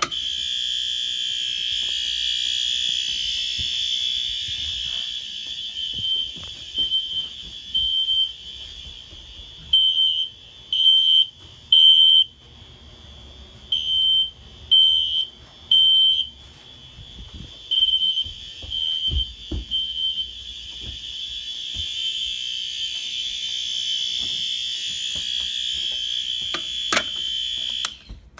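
Fire alarm sounder going off in a system test: a loud, high-pitched electronic tone starts abruptly and sounds steadily, then pulses in groups of three with short pauses, the temporal-three evacuation pattern. It then sounds steadily again until it cuts off suddenly near the end.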